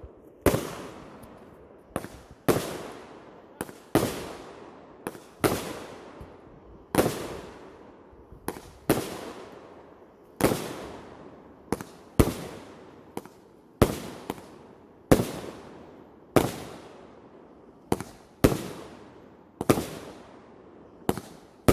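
Fireworks going off in a long rapid series of sharp bangs, about one a second, each ringing out with a fading echo.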